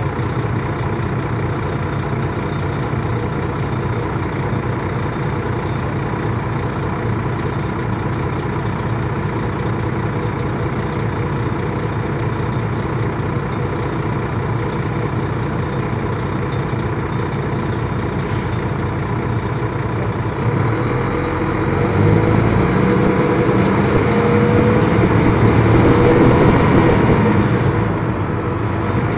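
Detroit Diesel Series 60 engine of a 2002 MCI D4000 coach, heard from inside the cabin, running steadily for about twenty seconds. A short sharp sound comes near the middle. The engine then gets louder and climbs in pitch in steps as the coach accelerates, easing off near the end.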